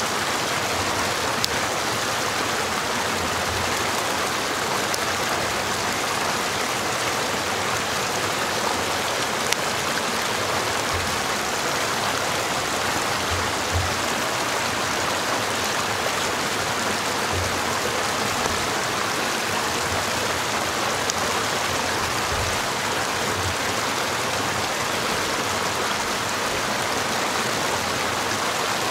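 Small mountain stream cascading over rocks: a steady rush of water.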